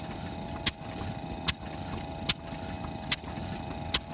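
Large Kubota FF-type 10 hp single-cylinder stationary engine running slow and even, a sharp beat about every 0.8 seconds over a steady hum: firing regularly now that its misfiring spark plug has been replaced.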